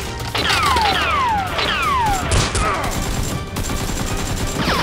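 Dubbed-in blaster shot sound effects. A quick run of shots, each trailing a falling whistle, comes in the first couple of seconds and another shot comes near the end, over background music.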